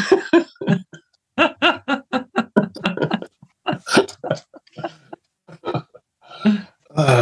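Laughter: runs of short, quick bursts of voice in a steady rhythm, with a drawn-out vocal sound at the start.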